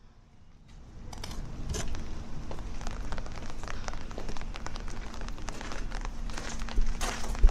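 Rain falling close by, heard as a dense stream of small drop ticks that sets in abruptly about a second in and then holds steady.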